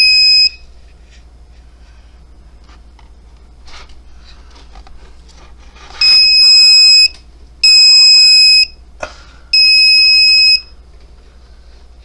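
Handheld RF bug detector's alarm beeping in loud, steady, high-pitched tones about a second long: one just ending at the start, then three in a row from about halfway. The alarm signals that it is picking up a radio-frequency signal.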